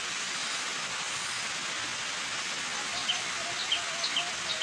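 Steady rush of a waterfall. Short high bird chirps repeat over it from about three seconds in.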